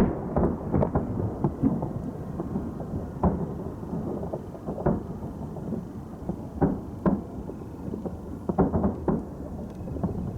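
Fireworks display: a string of deep booms from shells bursting, some coming in quick clusters, over a steady low rumble.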